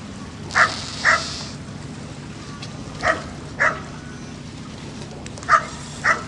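Dog barking: six short barks in three pairs, the two barks of each pair about half a second apart and the pairs a couple of seconds apart.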